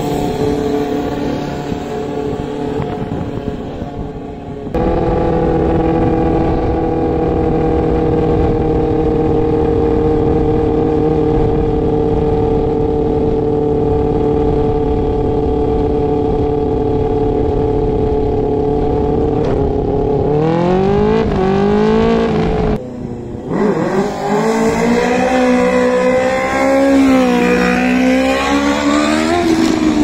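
Honda CBR600 F4i's inline-four engine running at a steady pitch, held at a constant throttle for a long stretch as the bike rolls. It then revs up and down in quick blips, and after a brief break revs and pulls again as the bike rides up.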